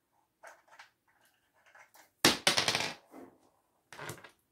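Plastic parts of a ring light's mount being handled and twisted: a few small clicks, then a loud crackling rattle for about half a second a little after two seconds in, and more clicks near the end.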